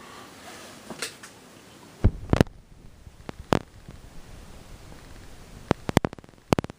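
Sharp clicks and knocks from handling the Model 200 key-cutting machine: a loud pair a little after two seconds, another click about a second later, and a quick run of clicks near the end.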